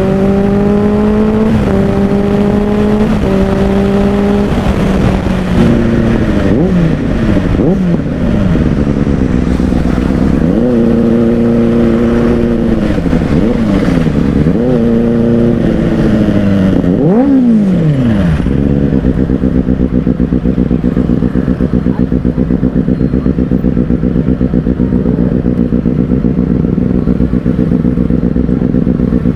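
Benelli 600i inline-four motorcycle engine through an IXIL X55 slip-on exhaust: it pulls up through a few quick upshifts, the pitch climbing and dipping at each change. Then the revs rise and fall several times as it slows. About 18 seconds in it settles to a steady, evenly pulsing idle.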